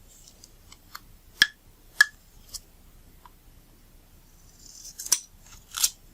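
Small sharp snips and clicks of double-sided tape being cut and handled, four in the first half. Near the end comes a short rising rustle ending in a snap, then one more brief rustle.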